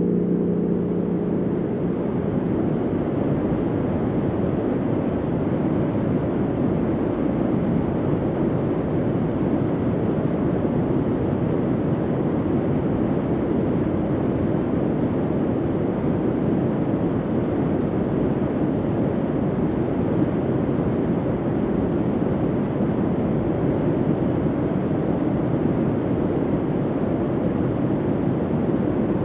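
Soft, steady low hum of bunker ambience: an even rumbling rush with no clear pitch that barely changes in level. A gong-like tonal drone dies away in the first second or so.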